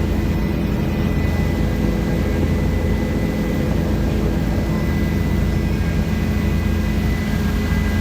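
Helicopter engine and rotors running: a steady, loud drone with a thin, constant whine above it.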